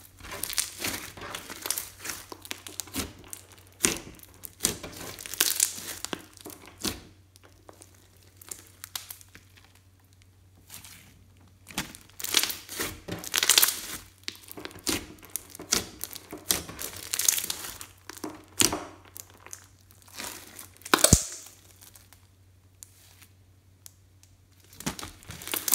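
Hands kneading, pressing and stretching a large lump of pink slime mixed with makeup and glitter: irregular bursts of sticky crackling and tearing, with short quiet pauses and one sharper snap late on.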